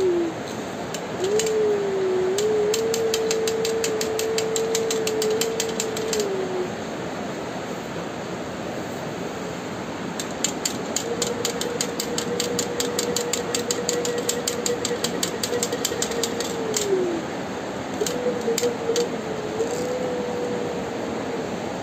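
Small plastic toy car pushed along a hard floor by hand, giving a steady whine with rapid ticking over a rolling rasp. The whine comes in three stretches and drops in pitch as each dies away.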